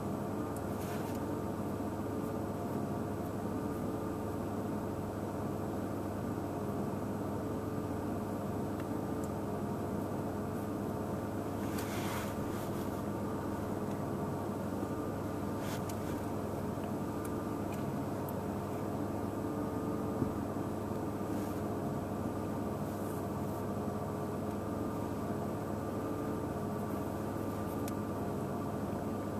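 A vehicle idling: a steady mechanical hum with several constant tones. A short rustle comes about twelve seconds in.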